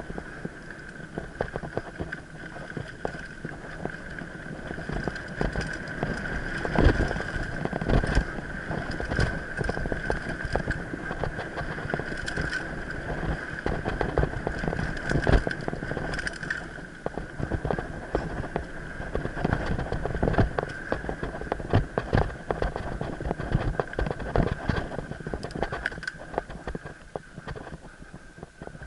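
Mountain bike rattling and clattering over a rough, rooty forest singletrack at speed, with frequent irregular knocks from bumps and a steady high whine throughout.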